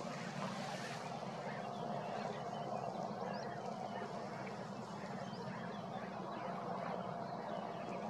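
Steady low background hum with a faint, even tone through it, and a few faint high bird chirps about three seconds in.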